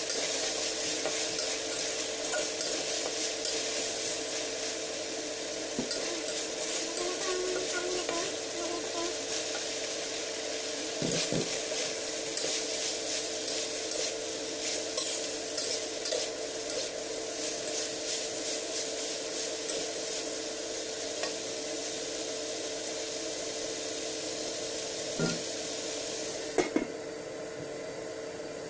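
Meat and sliced green chillies sizzling in a hot wok while a spatula stirs and scrapes against the pan, with frequent clinks. Near the end a metal lid is set on the wok with a couple of sharp clanks, and the sizzle drops to a muffled hiss. A steady hum runs underneath.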